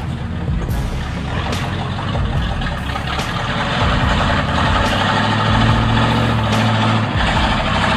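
Heavy truck engine running under load, with a low steady drone that grows louder from about four seconds in.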